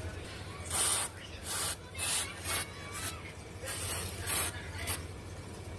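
A run of about eight short scraping strokes, hissy and uneven in spacing, from a tool rubbing on an iPhone 12 Pro's front glass during a screen glass repair.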